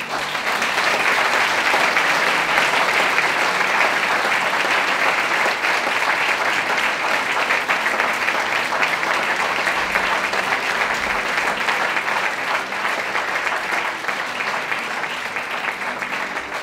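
Audience applauding at the end of a talk, starting suddenly and holding steady, easing off a little near the end.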